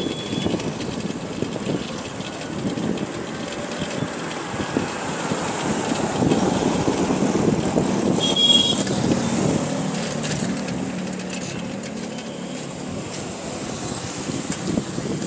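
Road traffic and wind noise heard on the move along a town street. A car passes close by about halfway through, with a short high-pitched tone about eight and a half seconds in.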